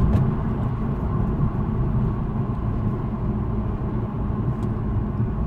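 Road noise inside a moving car's cabin: a steady low rumble of engine and tyres on the road.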